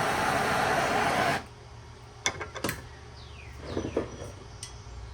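Blowtorch flame burning with a steady rushing noise on a seized brass furnace-burner fitting, heating it to loosen it, then shut off suddenly about a second and a half in. A few sharp metallic clicks follow.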